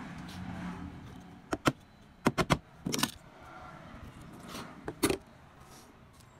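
Sharp metallic clicks and clinks in small quick groups as an alternator stator's iron core and copper windings are handled and turned over on a workbench.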